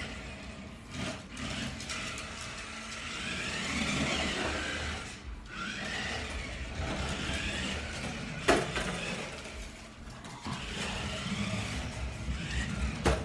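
Toy RC car's small electric motor whirring, rising and falling in pitch as the car speeds up and slows. A single sharp knock comes about eight and a half seconds in.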